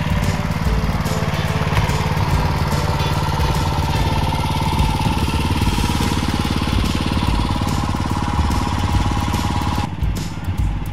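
Small petrol engine of a two-wheel walk-behind tractor running steadily as it pulls a trailer, with a steady higher tone alongside that stops near the end.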